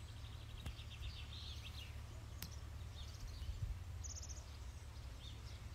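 Small birds chirping, with a quick trill near the start and a few short calls later, over a steady low rumble.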